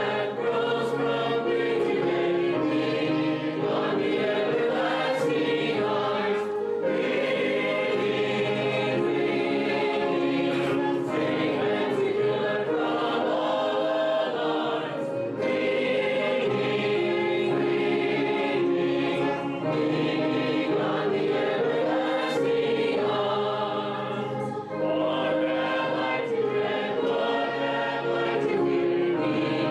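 A congregation singing a hymn together, in long held notes at a slow, steady pace, with a brief break between lines about three-quarters of the way through.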